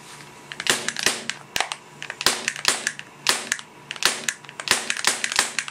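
Socomgear KelTec PMR30 CO2 airsoft pistol clicking and snapping about a dozen times at an uneven pace as it is repeatedly triggered and worked, some clicks in quick pairs. Its CO2 has probably all leaked out.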